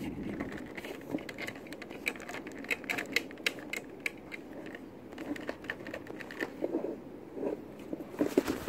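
Irregular hard plastic clicks and knocks from the plastic housing of a hang-on aquarium filter being handled and pried at while someone tries to open its top. The clicks come thickest in the first few seconds and thin out later.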